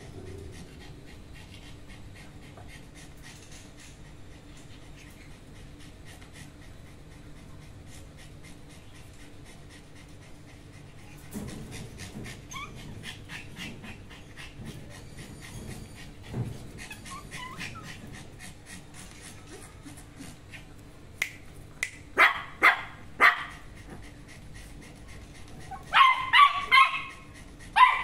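Small dogs in a pen barking in short, sharp yaps, after a few brief whines. Five or so barks come in quick succession a little past the middle, then a louder burst of barks near the end.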